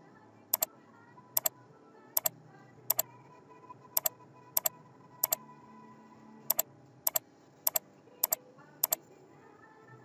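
Computer mouse button clicking about a dozen times at an uneven pace, each click a quick press-and-release pair, over faint background music.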